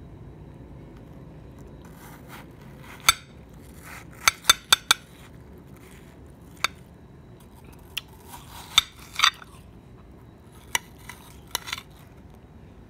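Metal spoon scooping flesh out of a halved watermelon: irregular sharp clicks and clinks of the spoon, several in quick succession about four seconds in, with short wet scraping sounds in between.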